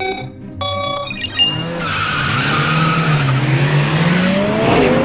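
Cartoon race start: a short countdown beep, then a longer, higher 'go' beep. Then race-car engines rev and tyres squeal as the cars launch, a loud screech over an engine whine that dips and then climbs near the end.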